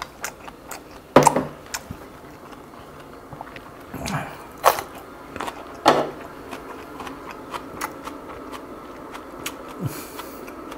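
A person eating: chewing, with scattered sharp clicks and taps of utensils against dishes, the loudest about a second in and again around five and six seconds in.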